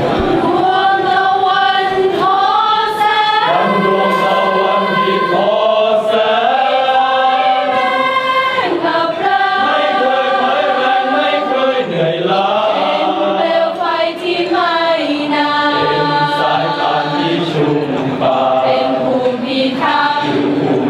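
Choir of police trainees singing in harmony, with long held notes that change pitch every second or so.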